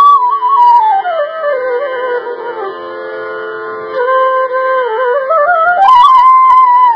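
Flute playing a slow melody in Indian classical style, over a steady drone. The notes slide down to a low held note in the middle, then climb back up to the high note near the end.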